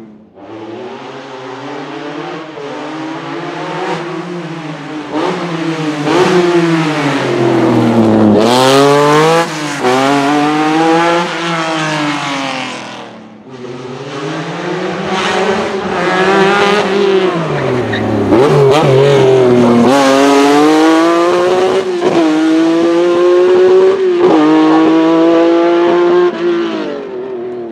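Lancia Stratos HF Group 4 rally car's mid-mounted Ferrari Dino V6 accelerating hard and loud, the revs climbing and dropping sharply at each upshift. There are two separate runs, with a sudden break about halfway between them.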